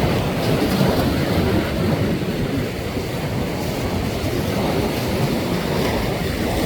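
Ocean surf washing with wind buffeting the microphone: a steady low rumble with a hiss above it.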